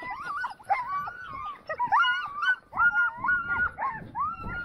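Several sled dogs of a nine-dog team whining and yipping at once, short rising-and-falling calls overlapping throughout. This is the sound of a team held stopped and eager to run.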